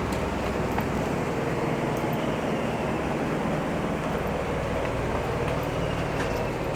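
A small harbour ferry's engine running steadily, with a low, even hum and no change in speed.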